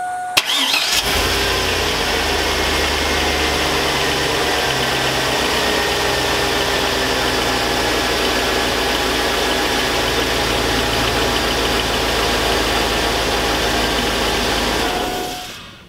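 2002 Chevy Avalanche's 5.3L Vortec V8 cranked and started, idling steadily for about fourteen seconds, then switched off. The owner suspects worn lifters and a rod knock in this high-mileage engine.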